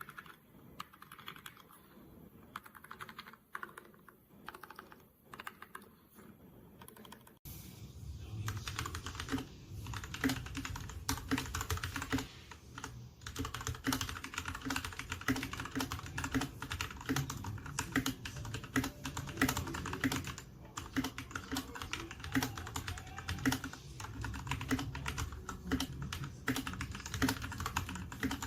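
Continuous fast typing on a Royal Kludge RK61 mechanical keyboard, a dense stream of key clacks. About seven seconds in, it cuts abruptly to a louder, fuller take with a deeper thud under each keystroke.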